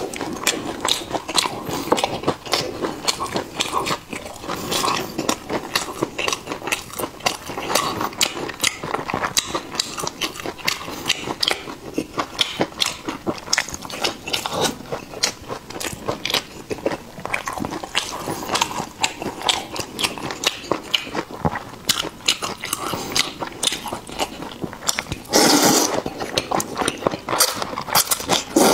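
Close-miked chewing of a fried piece of food, a steady run of wet mouth clicks. About 25 seconds in comes a loud slurp of luosifen rice noodles, with another starting near the end.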